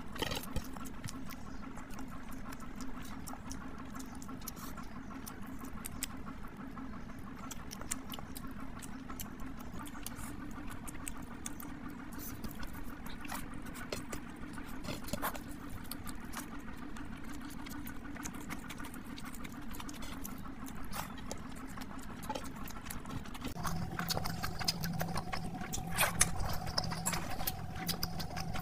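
Close-miked eating sounds: wet chewing and lip smacking, with fingers squishing rice and curry, as many small soft clicks over a steady low hum. The hum drops to a different pitch about three-quarters of the way through, and the clicks get a little louder.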